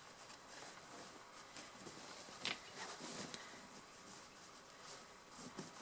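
Faint rustling and brushing of fabric as a sewn tote bag is handled and its corners pushed out, with a single soft tick about two and a half seconds in.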